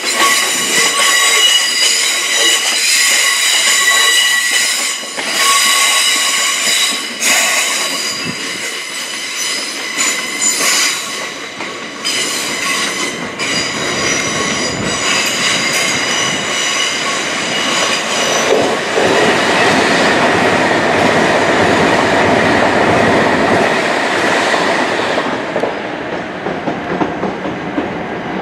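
A train running past on the tracks. Over the first half there is a steady high squeal in several tones, with clicks from the wheels over rail joints. After that comes a broad running noise that fades near the end.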